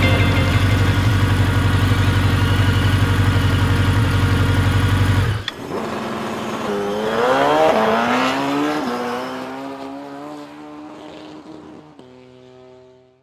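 Electronic motorbike engine sound effects, like those played by a toy electric ride-on motorbike: a dense, pulsing engine drone that cuts off suddenly about five seconds in, then a revving sound that rises and falls in pitch and fades away. A few held steady tones sound near the end.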